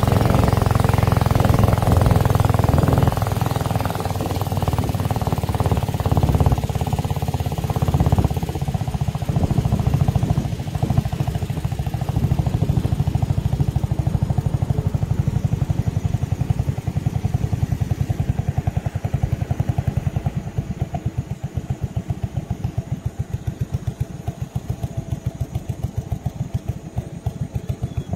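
A boat's engine running with a rapid, even pulse. It is loudest at first, then gradually gets quieter over the second half as the engine eases off.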